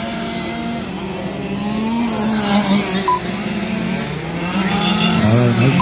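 Gas-powered 1/5 scale RC cars' small two-stroke engines running on the track, their pitch rising and falling as the throttle is worked. A short electronic beep, typical of a lap-counting system registering a car, sounds about three seconds in.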